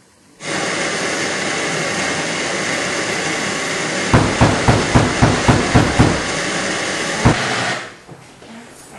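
Television static, a loud, even hiss from an untuned TV, starting suddenly and cutting off near the end. Partway through, about ten sharp thumps come in quick succession, with one more a second later.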